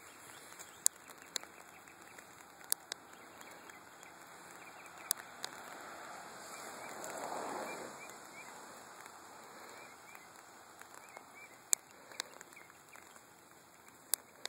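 Steady light rain falling, with scattered sharp drip taps and a brief swell of rushing noise about seven seconds in.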